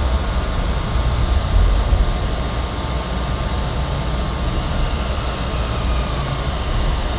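Toyama Chitetsu 9000-series tram heard from inside the car while running: a steady low rumble of wheels and running gear on the rails, with a faint steady whine above it.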